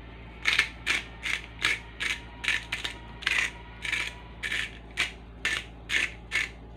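Salt grinder being twisted by hand, a short grinding burst with each twist, about two to three a second, stopping shortly before the end.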